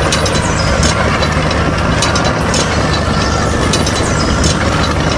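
A DIY mini tractor's motor running steadily, with irregular clicks and rattles over it.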